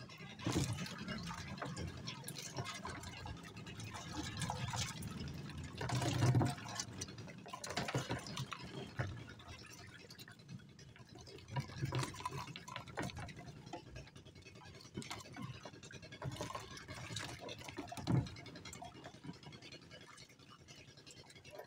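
Water dripping and splashing from a hooped net fish trap as it is lifted out and handled, with irregular rustles and knocks of the mesh and hoops against the wooden boat. Louder splashes or knocks come about six seconds in and again near the end.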